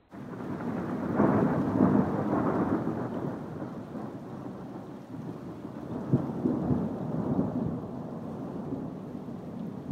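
Thunder rumbling from a nearby storm. It starts abruptly and is loudest in a long roll about one to three seconds in. A sharper clap comes about six seconds in, and the rumble then rolls on more quietly.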